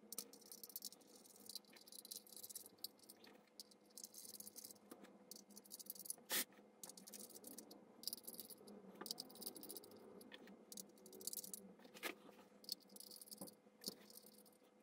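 Faint, scattered small metallic clicks and rattles as 6mm stainless steel studs are handled and screwed by hand into the threaded aluminium terminals of LiFePO4 cells, with a sharper click about six seconds in and another near twelve seconds.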